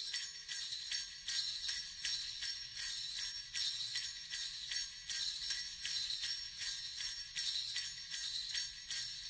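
Background music of jingle bells shaken in a steady rhythm, about four shakes a second.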